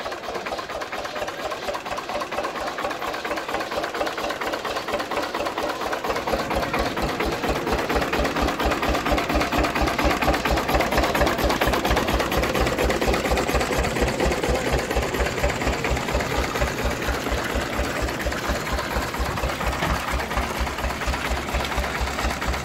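Vintage Slavia stationary diesel engine running, driving an old Osna pump through flat belts and pulleys, with a fast, even mechanical clatter. About six seconds in, a deep, regular thudding joins it, and the sound grows louder toward the middle.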